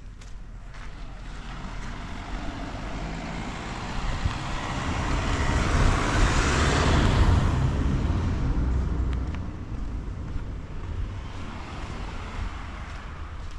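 A motor vehicle passing by on the road, its engine and tyre noise growing louder to a peak about halfway through and then fading away.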